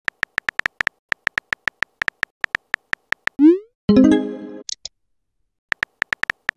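Texting-app sound effects: a fast run of virtual-keyboard tap clicks as a message is typed, then a rising swoosh as it is sent and a chime that dies away as the new message bubble appears. A few more tap clicks follow near the end, as the next message starts being typed.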